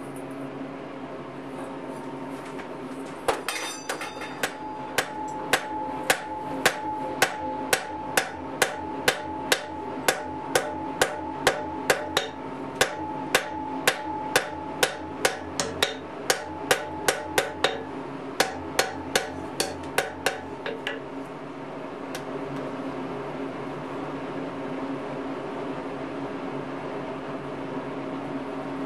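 Hand hammer striking a hot iron bar on an anvil, about two to three sharp blows a second, beginning about three seconds in and stopping about twenty seconds in, with two brief pauses. This is the forging of the offset on the strap of a ladle handle. A steady hum runs underneath.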